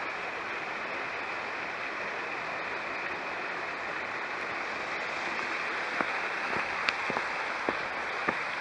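Steady rush of water from a small waterfall spilling into a rocky pool. From about six seconds in, footsteps on the path come at a walking pace.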